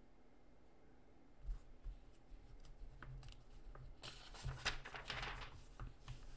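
Faint paper handling: soft thumps and rustling as the pages of a comic book are turned and handled.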